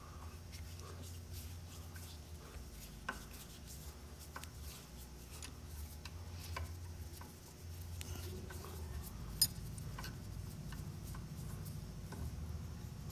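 A screwdriver backing small slotted screws out of a saw's arbor bearing cap, with faint scraping and a few light metal clicks, over a low steady hum.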